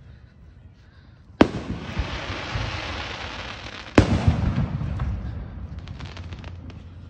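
Two fireworks bangs, about a second and a half apart from the first to the second at roughly 1.4 s and 4 s in, each trailing off over a couple of seconds into fading crackling.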